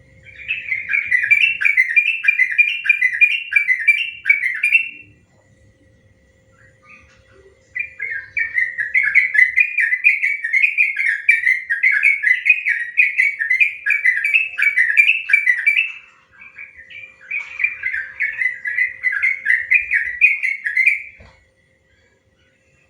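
Yellow-vented bulbul (trucukan) singing its long rapid 'ropel' song: three runs of fast, chattering repeated notes, the middle one about eight seconds long, separated by short pauses.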